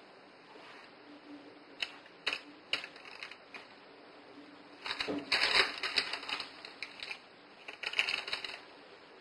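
A spatula clicking and scraping against a glass bowl and tray while melted chocolate is scooped and spread: a few separate clicks about two seconds in, then denser runs of clicks and scraping around five to six and a half seconds and again near eight seconds.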